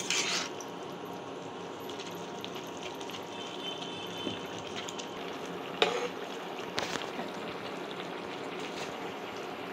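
Spinach curry with potatoes simmering and bubbling in a kadai as the excess water cooks off, stirred with a metal spoon. Two sharp clinks of the spoon against the pan about six and seven seconds in.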